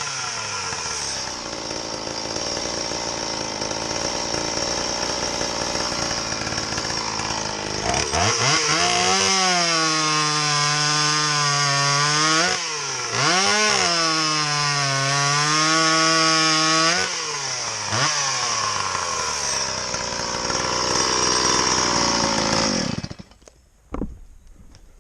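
30cc Stihl MS170 two-stroke chainsaw with a homemade exhaust pipe, running and revving hard through test cuts into wood, its pitch wavering under load with two brief dips. The engine is shut off about 23 seconds in, followed by a few small clicks.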